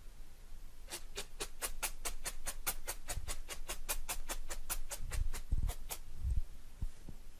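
A felting needle poking rapidly and evenly through wool into a foam felting mat: about two dozen sharp clicks, about five a second, for some five seconds. A few dull thumps come near the end as the mat is handled.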